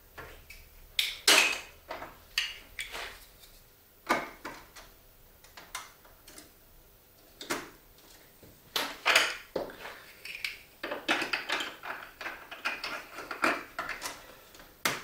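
Hard plastic clicks and clatter from a Duplo-block marble run, coming irregularly, with a busier stretch of rapid clattering from about eleven seconds in.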